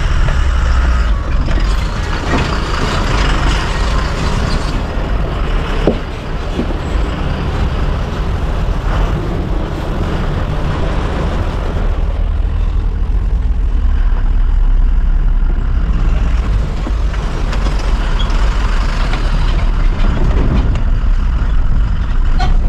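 Eicher Terra 16 tipper truck's diesel engine running in the cab as the truck drives over a rough, rocky dirt track: a deep, steady rumble with the cab rattling. A few sharp knocks come in, about two and six seconds in.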